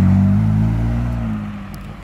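BMW M4's twin-turbo straight-six accelerating hard past. The engine note is loud at first, rises a little in pitch, then fades as the car pulls away, gone after about a second and a half.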